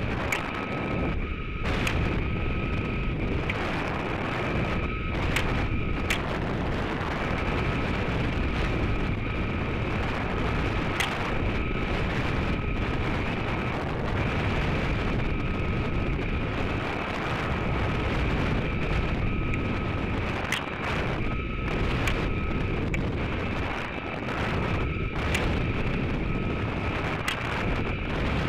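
Steady rushing of air over the onboard camera's microphone on the descending Stiga rocket. A faint high whistle-like tone comes and goes every few seconds, with occasional sharp clicks.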